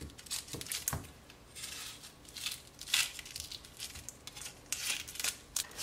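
Red onion's dry papery skin crackling as it is peeled and trimmed away with a kitchen knife, with short taps of the blade on a plastic cutting board, in scattered crinkles and clicks.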